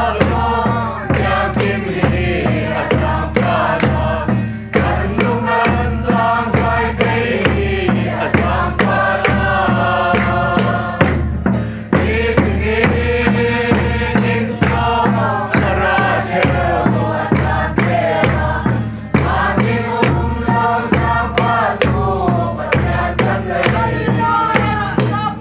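A mixed choir of men and women singing a hymn together in unison, over a large drum beating a steady rhythm of about two beats a second.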